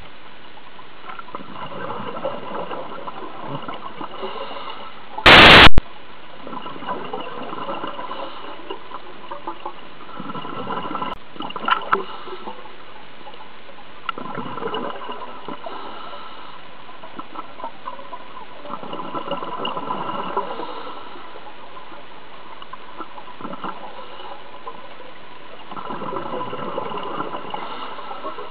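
Scuba diver's exhaled bubbles rushing from a regulator, heard underwater: bursts of two to four seconds that come back about every six seconds. A brief, very loud hiss cuts in about five seconds in, and there are a few clicks around twelve seconds.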